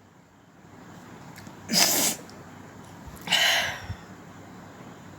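A woman sneezing twice: a short sneeze about two seconds in, then a second, slightly longer one about a second and a half later.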